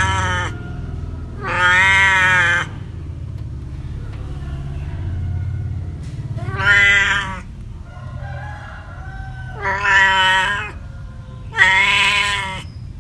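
A cat meowing: long, drawn-out meows of about a second each, four of them after the tail of one at the very start, with a steady low rumble underneath.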